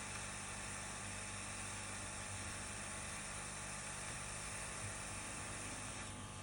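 Hot air rework station blowing steadily while desoldering a fuse resistor from a laptop motherboard, a continuous airy hiss over a low hum. The upper part of the hiss drops away near the end.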